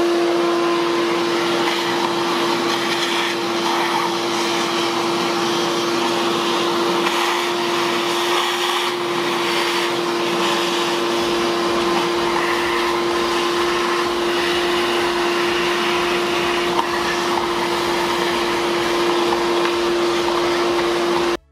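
Shop vac running steadily with a constant hum and rushing air, its hose drawing water from around the engine's ignition coils. It stops abruptly near the end.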